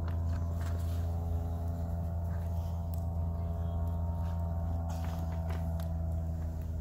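A steady low hum with several sustained higher tones runs throughout, and a handful of sharp crackles come from a wood campfire burning sheets of paper.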